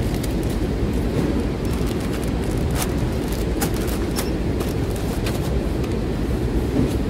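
Steady low rumble of warehouse packing-line machinery, with short crinkles and clicks of brown paper mailer bags being filled and folded by hand scattered through it.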